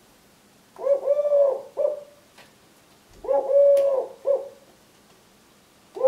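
Male Eurasian collared dove cooing twice from his nest box, each phrase a long coo followed by a short one. It is his nest call, the song he sings to ask for eggs to be laid.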